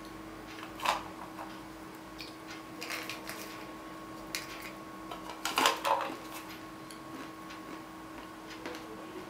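Salted peanuts rattling and clattering in their can as it is tipped up and poured into the mouth: a few short bursts of clicks, the loudest a little past halfway.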